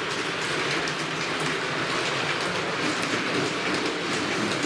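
Electric O scale model train running on the layout's track: a steady whir of the locomotive motor and rolling wheels, with light repeated clicking over the rail joints.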